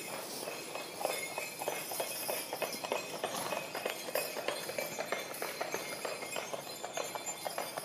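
Horse hooves clip-clopping on a road: quick, uneven clops, several a second, beginning about a second in.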